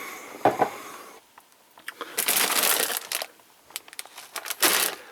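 Packaging crinkling and rustling in two bursts, one about two seconds in and a shorter one near the end, with a sharp knock about half a second in.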